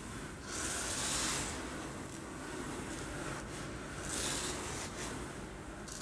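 Uncooked rice swished back and forth in a container to imitate waves on a shore: a hissing rush that swells about half a second in and again around four seconds in.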